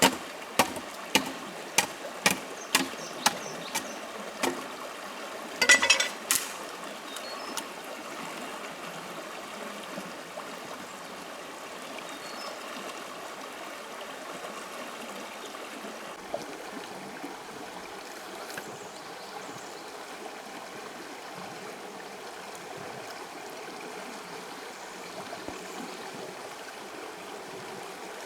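Sharp knocks, about two a second, for the first four seconds or so, then a louder short clatter about six seconds in. After that a small stream runs steadily.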